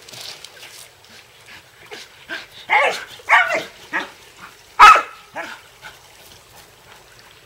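Groenendael Belgian Shepherd giving a run of short play barks while lunging at a frisbee, the loudest about five seconds in.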